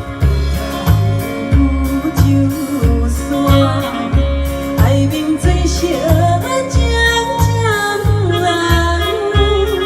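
Taiwanese Hokkien pop song performed over a backing track with a steady bass beat, a woman's voice singing a sliding, bending melody from about halfway in.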